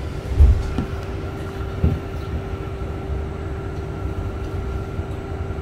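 Cabin sound of a stationary VDL Citea SLF 120 Electric bus: a steady electric hum and a higher whine over a low rumble, with two dull thumps, the louder about half a second in and another near two seconds in.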